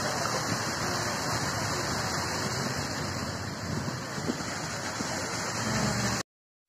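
Many small fountain jets splashing steadily into a shallow pool: an even rush of falling water that cuts off suddenly near the end.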